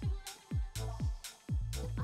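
Background electronic music with a steady beat, about two beats a second.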